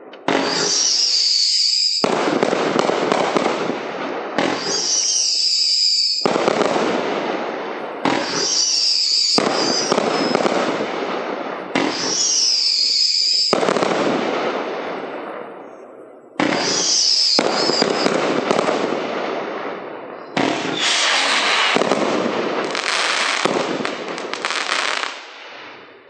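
Hot Fireworks 'Fiesty' firework cake firing volleys of whistling-tail shells. About five times, high screaming whistles rise and then give way to loud bursting breaks. A denser final volley near the end fades out.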